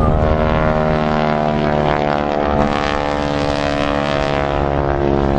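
Propeller aircraft's piston engine droning steadily as the plane flies by, a dense stack of even engine tones with only slight shifts in pitch.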